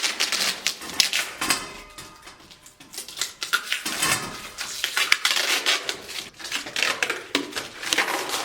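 Hard metal objects clattering and clinking as they are handled, in quick irregular knocks.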